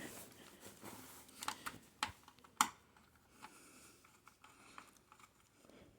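Faint, scattered small clicks and taps of a screwdriver and screw being worked into the optical drive's mounting in a computer's metal frame, with a few sharper clicks between about one and a half and two and a half seconds in.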